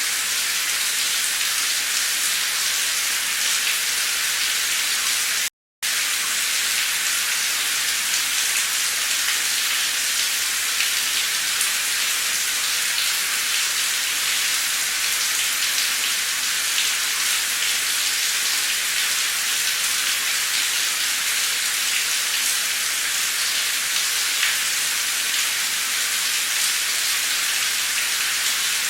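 Heavy, torrential rain pouring steadily: a dense even hiss with fine scattered drop ticks. The sound cuts out completely for a split second about five and a half seconds in.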